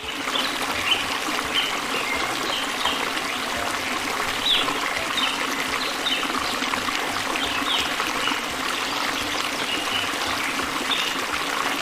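Running, trickling water, steady throughout, with many short high bird chirps scattered over it.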